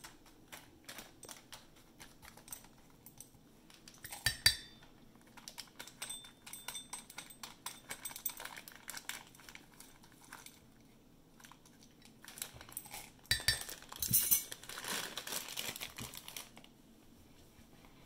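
Metal measuring spoon clinking and scraping against a ceramic ramekin as chocolate chips are scooped from a bag and tipped in, with scattered small clicks, one sharp clink about four seconds in, and a brief rustle of the bag and spoon later on.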